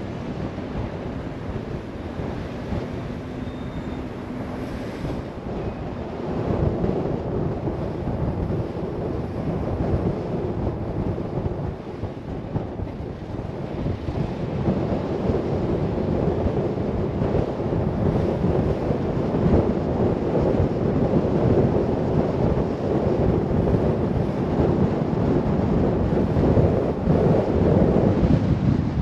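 Wind buffeting the microphone over the road noise of a car driving: a steady rushing noise that grows louder about six seconds in.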